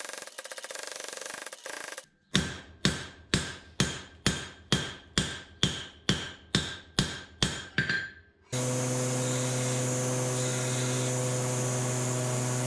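A steel bar hammered by hand on an anvil: about thirteen sharp, ringing blows at roughly two a second. Before them comes a short stretch of steady, rapid pounding from a power hammer, and about two-thirds of the way through a shop machine's electric motor starts and runs with a steady hum.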